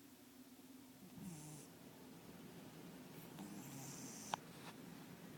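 Domestic cat snoring in its sleep: low, wavering snores on the breaths, some with a thin high hiss. A single sharp click sounds near the end.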